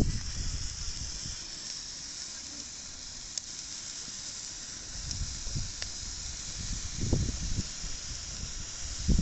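Steady hiss of rain falling, with uneven low rumbles that grow stronger near the end.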